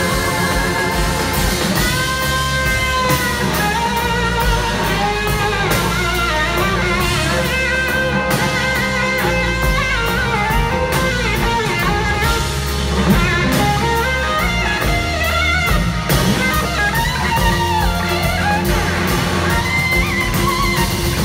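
Live rock band playing an instrumental passage: an electric guitar solo with gliding, wavering notes over drums.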